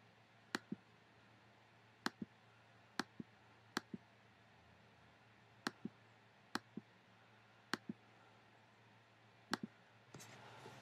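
Computer pointer-button clicks: about eight double clicks, each a press and release a fraction of a second apart, spaced one to two seconds apart, over a faint steady hum. A short rustling noise near the end.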